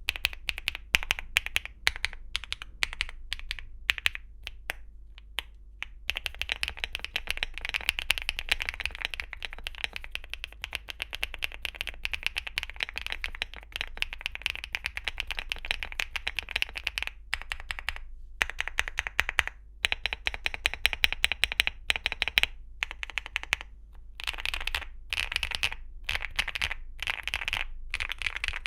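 Mechanical keyboard being typed on: a Weikav NUT65 with HMX Hyacinth V2 linear switches and Cherry-profile PBT keycaps. Separate keystrokes for the first few seconds, then fast continuous typing broken by a few short pauses.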